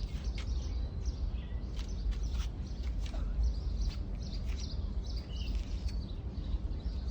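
Small birds chirping intermittently over a steady low rumble, with a few short clicks.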